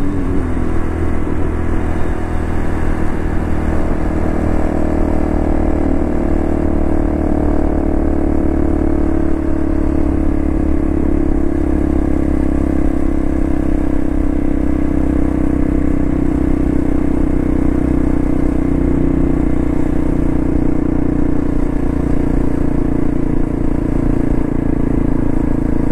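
Honda Cross Cub JA45's single-cylinder four-stroke engine running through a Yoshimura exhaust, cruising steadily at low speed. The engine note holds nearly even throughout.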